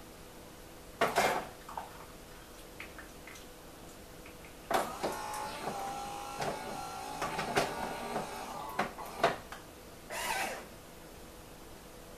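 Melitta CI Touch bean-to-cup coffee machine dispensing coffee into frothed milk. A brief hiss about a second in, then about five seconds of pump whine with clicks and sputters, and another brief hiss near the end.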